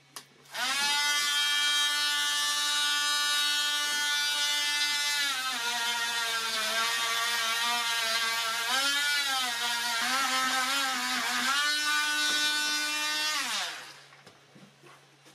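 Small high-speed electric power tool starting up and running with a steady whine. Its pitch drops and wavers for several seconds midway, returns to full speed, then winds down near the end.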